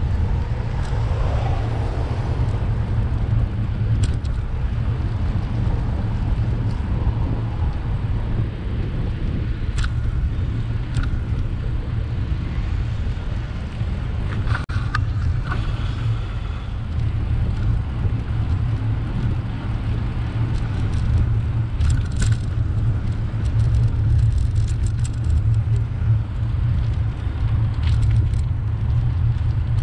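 Steady low wind rumble on the microphone of a moving bicycle, with passing car traffic and a few short clicks scattered through.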